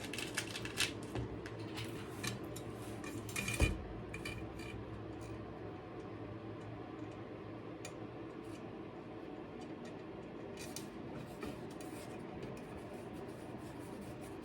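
Light metallic clicks and clinks of steel bicycle spokes against the hub, the rim and each other while a wheel is being laced. The clicks come thick in the first few seconds, then scattered, over a faint steady hum.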